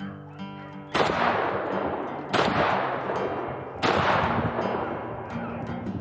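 Three shotgun shots about a second and a half apart, each a sharp blast that rings out and fades. Acoustic guitar music plays underneath.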